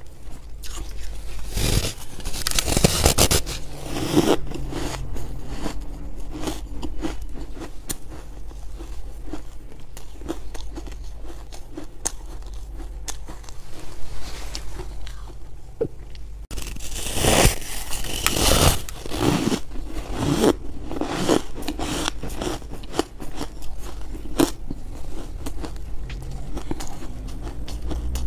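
Biting and chewing hard freezer ice coated in buckwheat flour: sharp crunches and cracking with a steady run of small crackles between bites, the crunching loudest near the start and again just past the middle.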